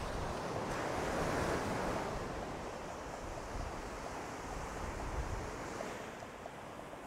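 Ocean surf breaking and washing up the sand, a steady rush that swells about a second in and eases near the end, with wind rumbling on the microphone.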